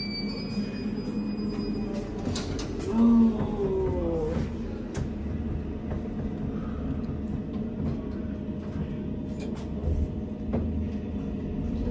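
Elevator car running, a low steady rumble that builds after about two seconds as the car moves. A brief low tone sounds about three seconds in.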